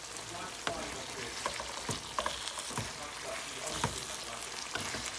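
Chicken sizzling in hot oil in a pan, a steady hiss broken by irregular knocks and scrapes of a utensil as the pieces are stirred.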